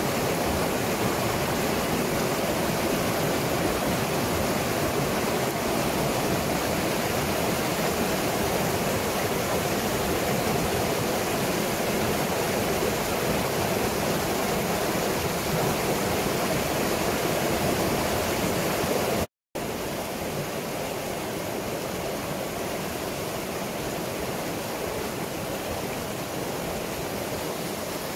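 Shallow, rocky mountain stream flowing over stones: a steady wash of water. It cuts out for an instant about two-thirds of the way through and comes back a little quieter.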